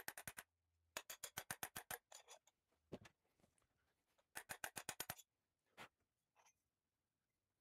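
Mallet tapping a rear main seal installer tool, driving a classic Mini's rear main seal down over the primary gear and into place. Quick runs of light taps, about ten a second, with a few single taps before it stops.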